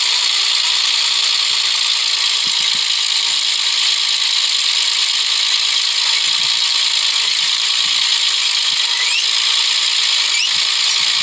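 Fiat 480 tractor's three-cylinder diesel running under load while the tractor is stuck in the soil, a steady, high-pitched mechanical noise.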